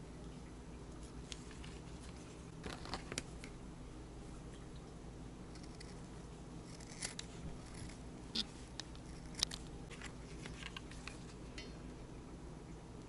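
Scattered light clicks and taps of hands handling a hot glue gun and fabric on a cutting mat, over a steady low hum.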